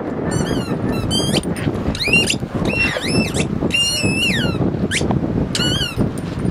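Squeaky rubber ball being chewed by a Siberian husky, giving a rapid run of short, high squeaks that rise and fall in pitch. The squeaks stop near the end.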